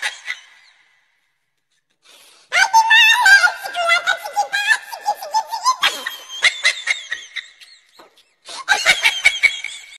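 A toddler laughing and squealing in rapid, high-pitched bursts. It starts about two and a half seconds in, after a silent start, and breaks off briefly near the end before resuming.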